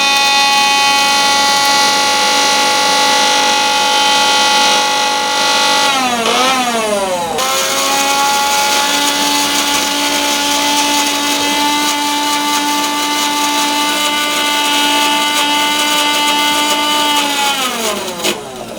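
Electric mixer grinder motor running at high speed while grinding a wet paste, with a steady high whine. About six seconds in it slows and speeds up again. Near the end it winds down in pitch as it is switched off.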